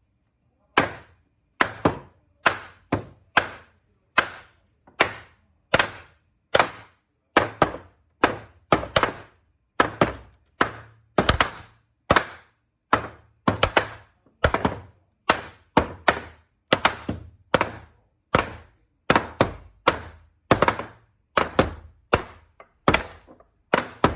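A wooden mallet strikes a timber joint again and again, driving the nail-free joint together. Each blow is a solid thump, coming about twice a second with an uneven rhythm and some blows in quick pairs.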